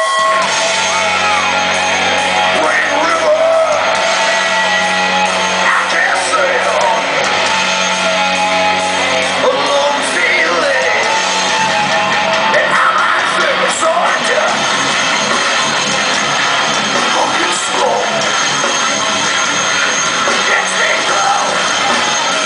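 Heavy metal band playing live at full volume, with electric guitars and drums under shouted, sung vocals, heard through the hall.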